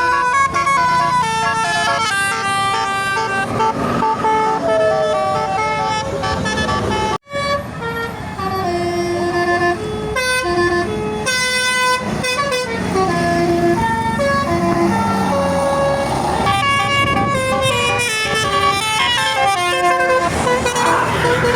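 Bus Basuri telolet musical air horns playing a melody: loud held horn notes stepping up and down in pitch, over a low rumble of bus engines. The sound cuts out for an instant about seven seconds in, then the horns carry on.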